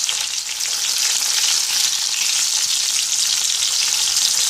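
Hot oil sizzling steadily in a stainless steel frying pan, with fine crackling, as breaded pineapple pieces are laid in to fry.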